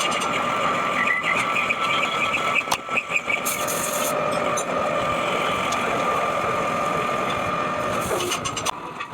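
Metal lathe running with a steady whine, with scattered ticks and two short bursts of high hiss, one a few seconds in and one near the end.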